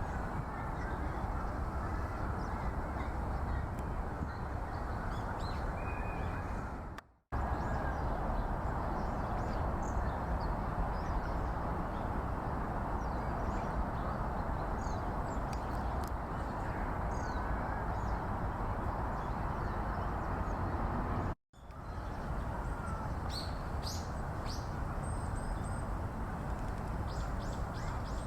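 A steady rush of background noise with scattered short, high bird calls, which come more often near the end. The sound cuts out briefly twice.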